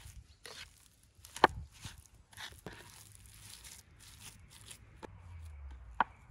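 Raw minced meat being mixed with sauce and spices by spoon and by hand on a wooden tray: soft, wet squelching and scraping. Two sharp clicks stand out, one about a second and a half in and one near the end.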